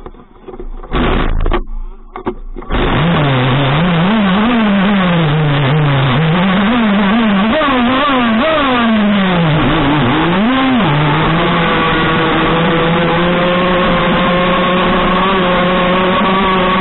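Small two-stroke gasoline engine of an RC model speedboat. It comes in short separate bursts for the first few seconds, then runs continuously from about three seconds in, revved up and down irregularly. From about eleven seconds it holds one steady high pitch at speed.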